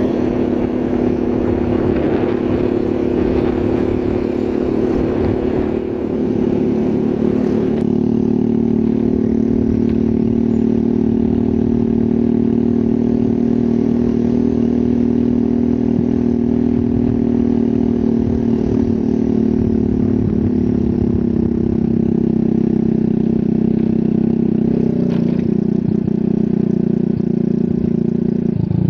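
Motorcycle engine running steadily at cruising speed, with wind and road noise underneath. Its pitch steps down a few times in the last ten seconds as the engine slows.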